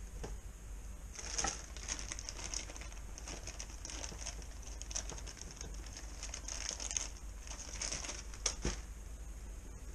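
Plastic bag of brown sugar crinkling and rustling as it is handled and shaken out, from about a second in until near the end.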